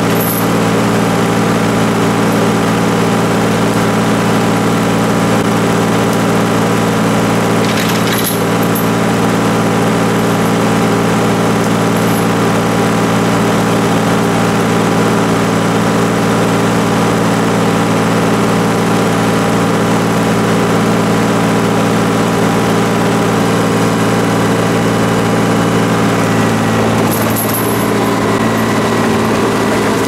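Cat D5 bulldozer's diesel engine running steadily, with one brief metallic clank about eight seconds in.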